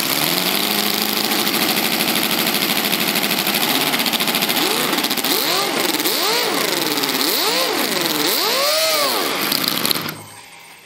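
Homemade four-stroke V8 model engine with rotary valves, running without exhaust manifolds at almost full throttle and out of control because its throttle servo has stopped responding. In the second half the revs swing up and down about once a second, and near the end it dies away as it runs out of fuel.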